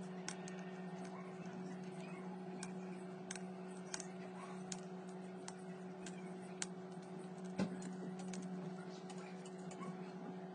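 Wooden toothpicks being pushed into screw holes in a wooden door frame and snapped off, a scattering of small sharp clicks and cracks with one louder snap about seven and a half seconds in. A steady low hum runs underneath.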